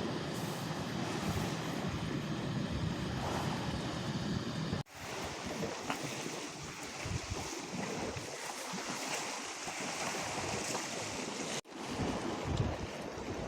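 Sea waves washing against shore rocks, with wind buffeting the microphone. The sound breaks off abruptly twice and resumes at once, as shots change.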